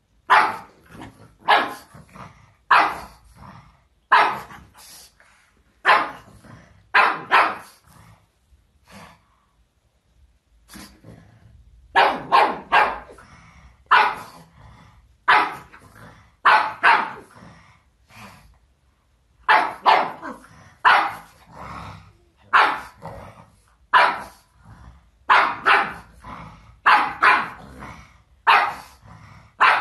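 Pug barking at a balloon: runs of sharp, loud barks, roughly one a second, broken by two short pauses.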